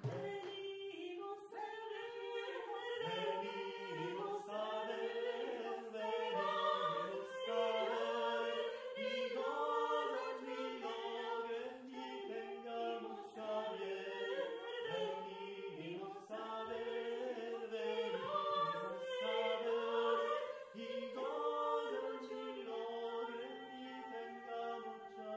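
Women's and a man's voices singing a song together in harmony, in long held notes with little percussion.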